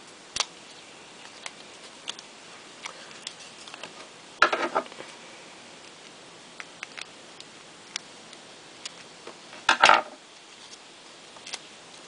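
Scissors cutting excess clear tape on a cardstock piece: two louder snips, about four and a half and ten seconds in, among small clicks and crinkles of tape and card being handled.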